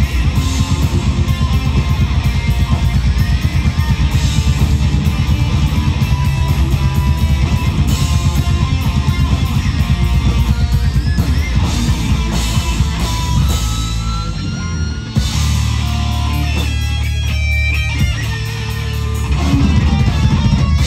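Live rock band playing an instrumental passage on electric guitars, bass guitar and drum kit. About fourteen seconds in, the steady drum beat gives way to long held chords.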